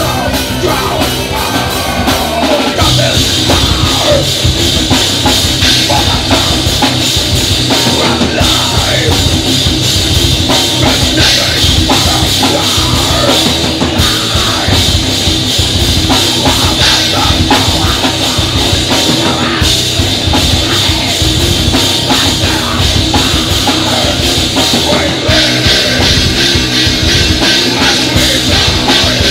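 Melodic death metal band playing live: distorted electric guitars, bass guitar and fast drums with cymbals, loud and unbroken throughout.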